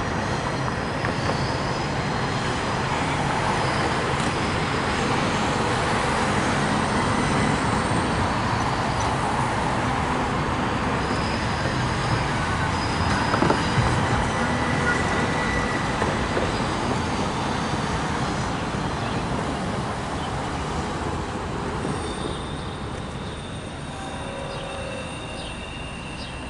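Freight train's intermodal cars rolling past on curved track: a steady rumble of wheels on rail with faint high wheel squeals on the curve. A car passes close by about halfway through, and the train noise fades near the end as the last cars go by.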